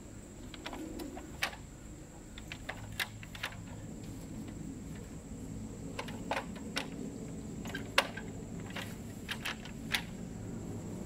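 Folding sawhorses being opened and adjusted: an irregular series of sharp clicks and clacks from the legs and latches, the loudest about eight seconds in.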